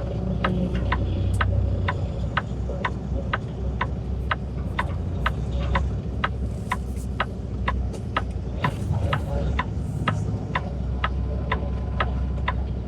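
Semi truck's diesel engine idling heard from the cab, with the turn-signal flasher ticking steadily about twice a second.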